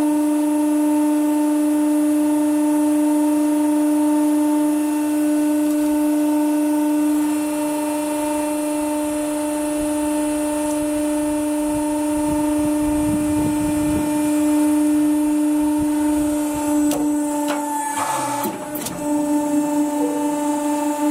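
Hydraulic press running with a steady mechanical hum while its ram squashes a roll of blue plastic twine. A low rumble comes about halfway through, then a few sharp cracks and a crunch about three-quarters of the way in as the roll collapses flat.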